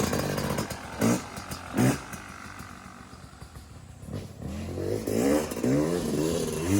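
Two-stroke motocross bike engine blipped loudly twice. It then pulls away, its pitch rising in several successive sweeps as it accelerates through the gears.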